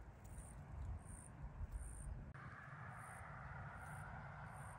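Faint insect chirping: short high-pitched chirps repeating about every three-quarters of a second, over a low rumble. The background changes abruptly about halfway through.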